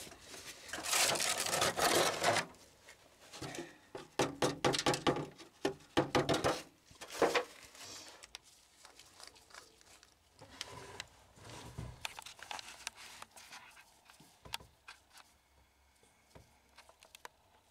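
A cloth rag rubbing over a metal oil filter canister in two bouts of wiping, then scattered small metallic clicks and handling noise as a wrench works the canister's top bolt.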